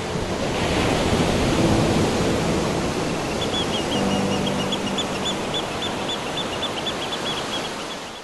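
Ocean surf washing over rocks: a steady rush of breaking waves, with a few low held musical notes under it and a quick run of high chirps about halfway through. It fades slightly toward the end.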